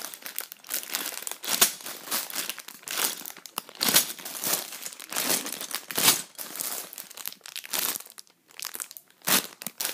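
Clear plastic bags full of Lego bricks crinkling as they are handled, in irregular bursts with a few sharper crackles.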